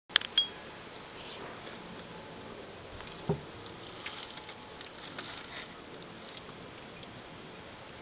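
Two sharp camera clicks with a brief beep as the recording starts, then wind rustling through the trees as a steady hiss. There is a single low thump about three seconds in.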